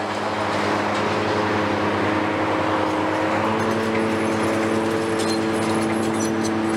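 Diesel engines of hydraulic demolition excavators running steadily under load, with a whine whose pitch steps up about halfway through as the hydraulics work. A few faint light clinks come near the end.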